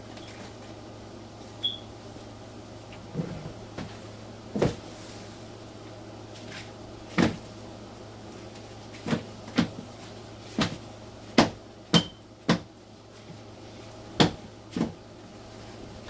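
Cardboard egg crates from a dubia roach colony being knocked against a container to shake the roaches off: a dozen or so sharp, irregular knocks that come closer together after about nine seconds.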